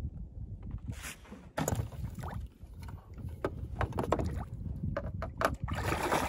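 Water splashing as a hooked blue catfish thrashes at the surface while a jug line is pulled in by hand: a few short, sharp splashes in the middle, then a longer stretch of splashing near the end.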